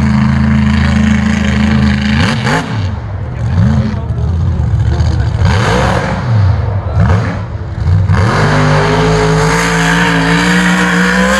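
Lifted mud-bogging pickup's engine running loud, then revved in several rising and falling surges, and held at high revs over the last few seconds.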